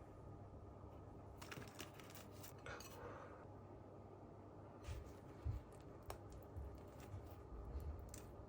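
Faint, sparse clicks and clinks of small hard objects being handled, with a short rustle about three seconds in.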